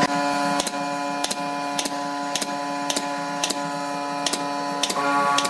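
Pneumatic brad nailer firing nails into the wooden edge banding of a tabletop, about nine sharp shots a little over half a second apart.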